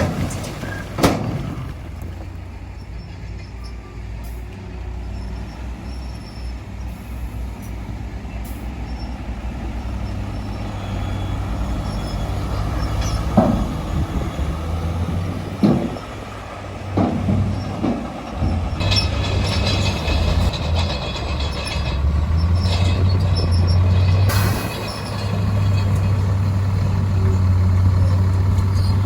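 Diesel engine of heavy construction machinery running steadily, getting louder toward the end, with a few sharp knocks about halfway through.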